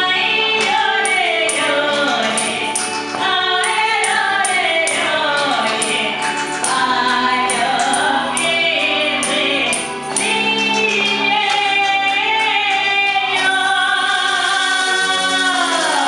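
A woman singing a song into a microphone over accompanying music with a steady beat; she holds one long note near the end.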